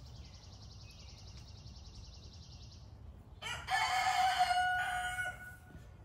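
A rooster crows once, about three and a half seconds in. The call lasts about two seconds and ends on a long held note.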